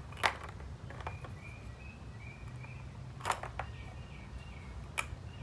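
Toy game pieces set down with sharp clicks: three distinct clicks a few seconds apart and a couple of lighter taps. A faint high warbling chirp runs underneath.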